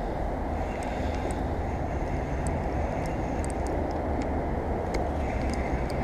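Steady low outdoor rumble, with faint, scattered light ticks from a spinning reel while a hooked fish is being played.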